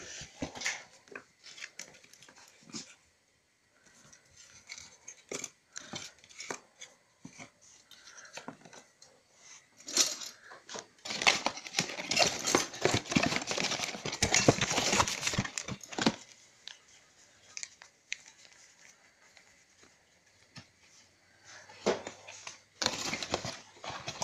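Crinkling and rustling of packing paper, plastic bags and foam wrap being handled and pulled out of a cardboard box: scattered crackles, a dense stretch for several seconds in the middle, and another burst near the end.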